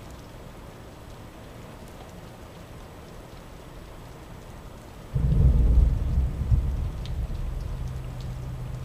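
Steady rain falling, then, about five seconds in, a sudden loud clap of thunder that rumbles on and slowly fades.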